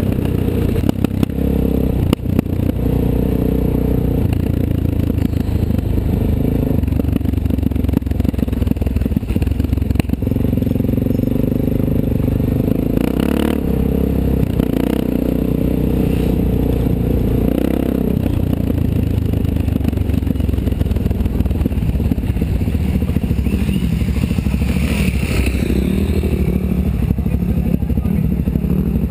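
Suzuki DR-Z400SM's single-cylinder four-stroke engine running at low revs while the bike is ridden slowly over rough grass, the revs rising and falling a few times, with scattered knocks and clatter.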